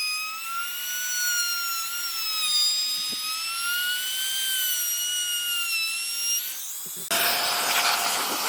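A high-speed electric power tool motor whining steadily, its pitch drifting slightly up and down. About seven seconds in it gives way abruptly to a loud, steady hiss.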